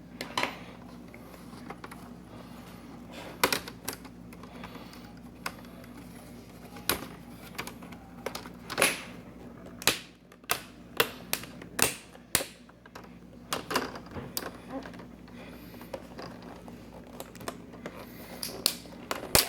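Sharp, irregular clicks and taps of a small screwdriver and plastic laptop screen parts being worked on a bench, over a steady low hum.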